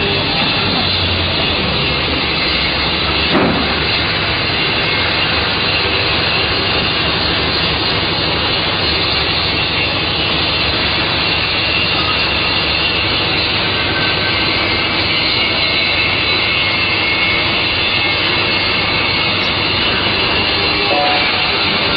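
Steady, loud machinery noise that does not change, with a single short click about three and a half seconds in.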